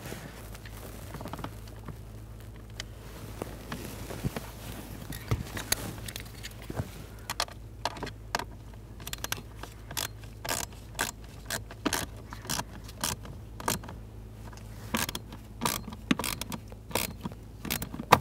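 Phillips screwdriver tightening the blend door actuator's mounting screws into its plastic housing: soft scraping at first, then from about seven seconds in a run of short sharp clicks, about two a second.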